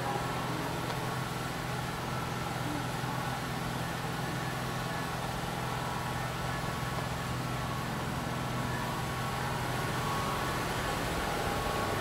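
A steady, unchanging machine hum with a fainter, higher whine above it.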